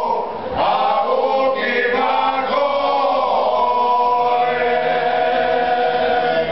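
A group of men singing a Croatian folk song unaccompanied, in several voice parts. After a short breath near the start they hold long, steady notes through the second half.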